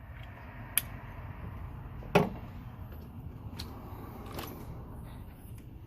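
Sharp plastic clicks and knocks as the wiring connector is handled and pushed onto a 2008 Chevy Tahoe's rear door lock actuator. The loudest knock comes about two seconds in, with a few lighter clicks around it, over steady low background noise.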